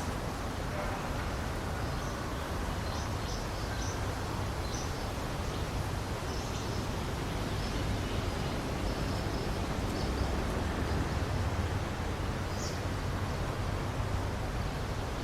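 Steady rushing outdoor noise with a low rumble, over which small birds give brief, faint, high chirps and call notes, scattered through the middle and with one clearer note near the end.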